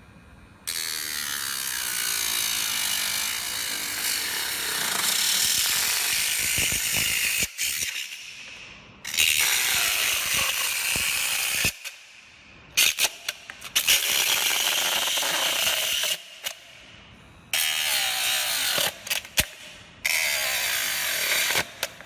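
A homemade 12V DC motor drill-cutter-grinder running against material, a loud hissing grind that comes in about five separate bursts. Each burst starts and stops abruptly, and some fade off as the motor spins down.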